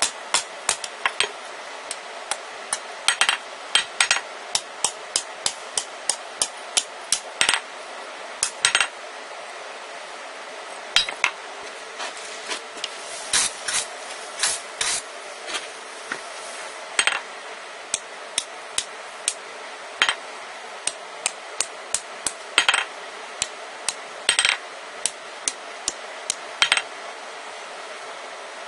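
Hand hammer striking red-hot rebar on a steel anvil: sharp ringing blows in quick runs, broken by short pauses, over a steady hiss.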